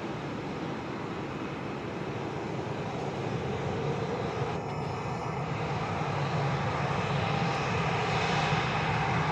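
Boeing 737 jet's twin turbofan engines, a steady rushing roar with a low hum, slowly growing louder.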